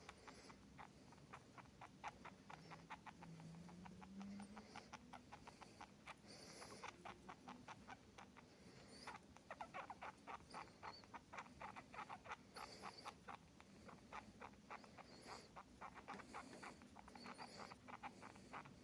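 Pet mouse making faint, short high squeaks every two seconds or so, over a fast run of small clicks, several a second.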